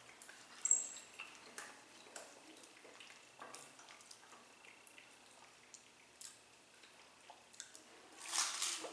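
Faint eating sounds at a table: scattered small clicks and taps of utensils and food containers, with one sharp clink about a second in and a brief rustle near the end.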